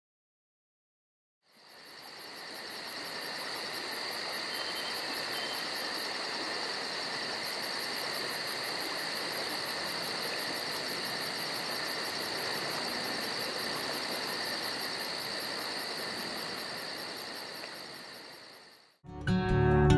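A steady night chorus of high-pitched trilling calls fades in about two seconds in, holds, and fades out near the end, where strummed acoustic guitar music begins.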